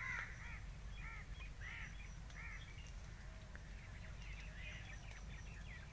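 Birds calling in the orchard: a string of short arched calls, several in the first three seconds and fainter ones after, over a steady low background rumble.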